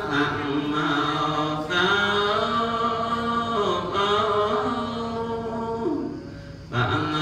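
Buddhist monk chanting into a handheld microphone, a single voice holding long, slowly moving notes, with a brief breath about a second and a half in and a longer pause near the end.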